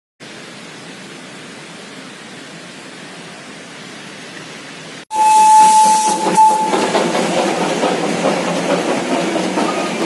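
A steady, even outdoor background hiss, then about halfway a sudden switch to a Darjeeling Himalayan Railway steam locomotive. Its whistle blows one steady note for about a second and a half over loud steam hissing, and the locomotive's steam and clatter carry on after it.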